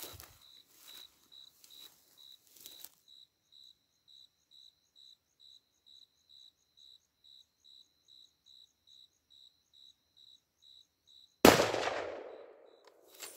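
Crickets chirping in an even rhythm of about three chirps a second after a few seconds of rustling, then a single loud gunshot about eleven and a half seconds in, its report echoing away over about a second.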